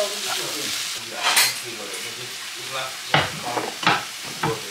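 Vegetables and meat sizzling in a hot wok while a wooden spatula stirs and scrapes them. A few sharp knocks of utensils against the pan come in the second half.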